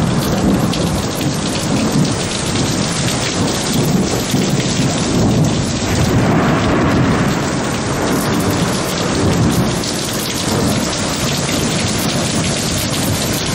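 Heavy rain pouring steadily, with thunder rumbling low throughout a thunderstorm.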